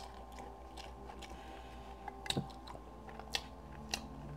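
Faint close-up chewing of a mouthful of spicy noodles, with a few scattered wet mouth clicks and smacks.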